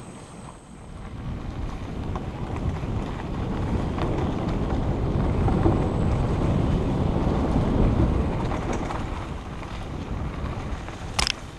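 Wind buffeting the microphone of a camera on a moving mountain bike, mixed with the noise of tyres and bike over a grassy, overgrown trail; it builds over the first couple of seconds as the bike gathers speed. A single sharp clack near the end.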